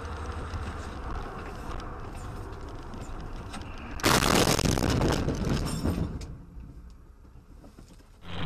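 Road and engine noise heard from inside a moving car. About four seconds in comes a sudden loud crash of a vehicle collision, which lasts about two seconds and then dies away.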